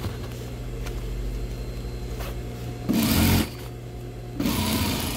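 Industrial lockstitch sewing machine stitching backpack fabric in two short runs, one about three seconds in and another near the end, over a steady low hum.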